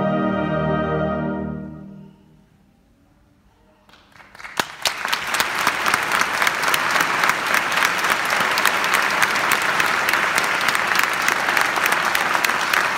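A wind band of saxophones, euphoniums and tubas holds its final chord, which fades away within about two seconds. After a short pause a few claps break out and grow into full, steady audience applause.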